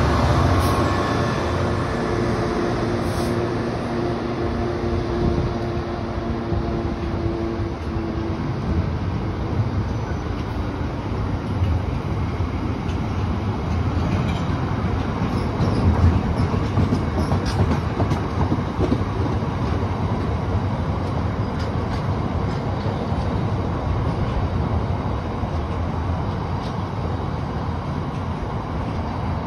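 A freight train of box wagons rolls past at steady speed, a continuous rumble of wheels on rail with scattered clicks over the joints. In the first several seconds the steady note of the Class 66 diesel locomotive at its head fades away.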